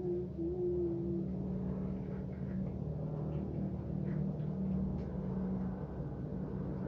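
Steady low motor hum, like an engine running, with a few faint clicks.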